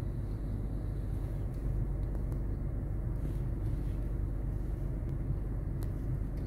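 Kitten purring right against the microphone: a steady low rumble, with a few light clicks.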